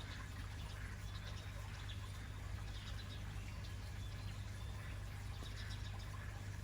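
Faint, scattered chirps of small birds over a steady low hum and hiss.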